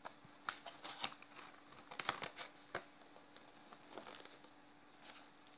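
Faint taps and rustles of a cardboard McChicken burger box being handled and closed, a scatter of small clicks with the sharpest near the middle.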